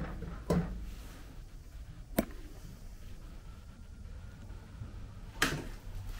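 Three sharp knocks at uneven gaps of a few seconds, over a low steady rumble; the last knock is the loudest and rings on briefly.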